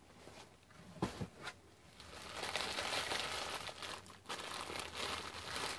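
Tissue paper rustling and crinkling as a gift is unwrapped from a packed box. It starts as a few faint handling sounds about a second in, then becomes steady soft crinkling for the last few seconds.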